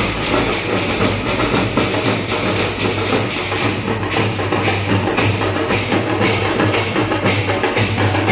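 A street band of large hand-carried drums beating a loud, continuous festival rhythm, with a steady low hum underneath.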